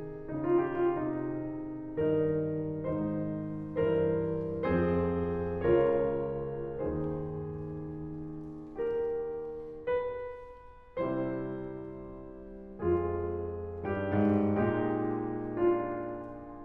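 Background piano music: slow chords and notes, each struck and left to ring out and fade before the next.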